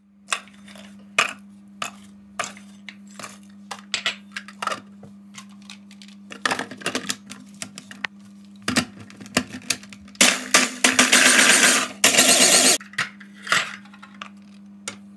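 Plastic food processor handled with clicks and knocks of its bowl and lid, then running in two short pulses, a longer one of under two seconds and a brief one, chopping biscuits into crumbs.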